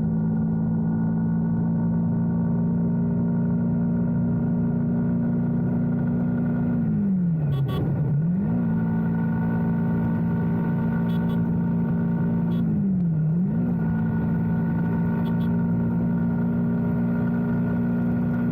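Motorcycle engine running at a steady cruising note. Its pitch dips and picks back up twice as the throttle is eased off and reopened.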